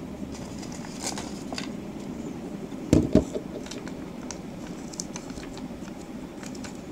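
Handling noise: two loud thumps close together about three seconds in, then the light crackle and clicks of a paper instruction leaflet being unfolded and handled, over a steady low hum.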